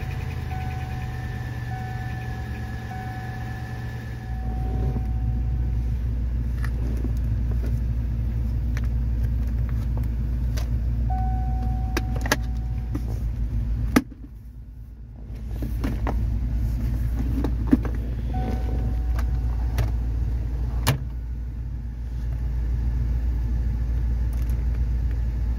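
A 1997 Cadillac DeVille's 4.6-litre Northstar V8 idling, heard from inside the cabin as a steady low hum that gets louder about four seconds in and briefly drops near the middle. A few sharp clicks of interior fittings are heard over it.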